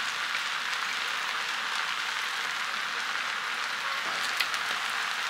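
Noodles and soy sauce frying in a large frying pan, a steady sizzle, with a couple of light clicks about four seconds in.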